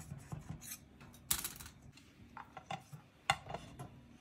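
A small knife scraping against the inside wall of a metal cake tin to loosen the baked cake, in short strokes. These are followed by a brief scrape, a few light knocks, and a sharp clink about three seconds in as a plate is set over the tin.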